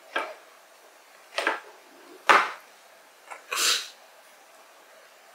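Kitchen knife cutting into an onion on a plastic cutting board: four short strokes about a second apart, the loudest a little past two seconds in and the last one a bit longer.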